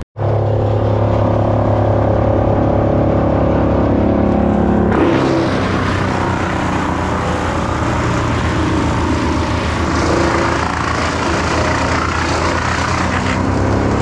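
An engine running steadily, cutting in abruptly at the start; about five seconds in, a louder, rough noise joins it and carries on to the end.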